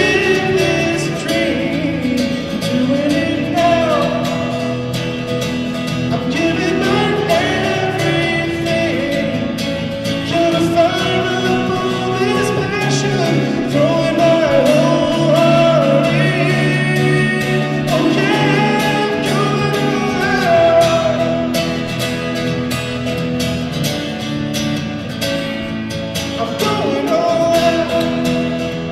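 Country-style pop song: a man singing long, wavering notes over strummed acoustic guitar and a full band backing.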